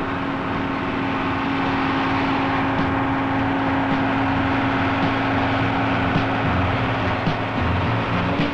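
JCB 800 series crawler excavator's diesel engine running steadily under load with a constant whine, and a few short knocks, as the machine climbs a steep slope.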